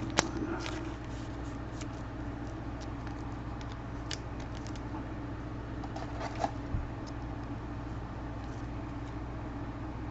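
Trading cards being handled: light scratchy rustling with a sharp click just after the start and a few more taps about six seconds in, over a steady low background hum.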